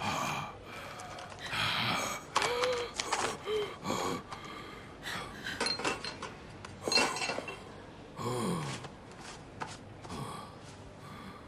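Gasping breaths amid scattered clinks and knocks of things being handled.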